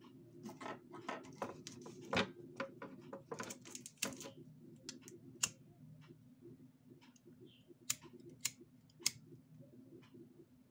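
Irregular small clicks and taps of hands working with a cigarette lighter and battery cells while heat-shrink tubing is shrunk over the cell wires, over a faint steady low hum.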